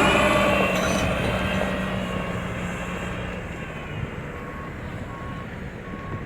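Diesel engine of heavy equipment running and fading away, with a faint backup alarm beeping about once a second from about two seconds in.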